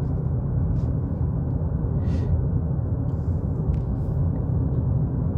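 Steady low road and tyre rumble inside the cab of a Ford Maverick Hybrid pickup at about 45 mph, coasting downhill with the battery charging.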